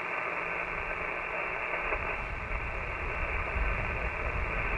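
Icom IC-7300 HF transceiver's receiver hiss through its speaker: steady band noise cut off above about 3 kHz, the radio open between calls while listening for replies. A low rumble joins about two seconds in.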